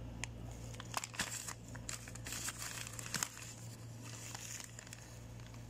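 Plastic packaging of a bag of rice flour crinkling and rustling as it is handled, in scattered short crackles.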